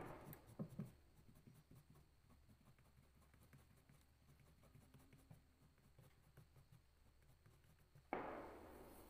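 Near silence, with faint scratching of a crayon stroking across paper. There is a sharp click right at the start, and a sudden hiss about eight seconds in that fades away.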